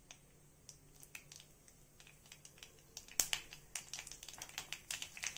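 Mustard seeds popping in hot coconut oil in a cast-iron kadai: scattered sharp pops at first, growing quicker and louder from about three seconds in. These are the seeds spluttering as the tempering comes up to heat, the sign that they are ready.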